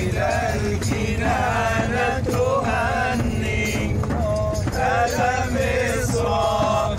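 A group of men chanting devotional praise songs to the Prophet (madih) together, their voices rising and falling in long sung phrases, with regular beats of a hand-held frame drum. A steady low rumble of the moving bus runs underneath.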